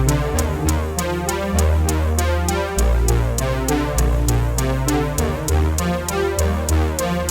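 Background music: an electronic instrumental passage with a steady beat, a deep synth bass line and regular hi-hat ticks, no singing.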